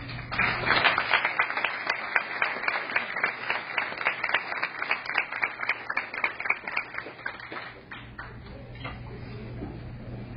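Audience applauding. The clapping starts about half a second in, dies away after about seven seconds, and leaves a few scattered claps.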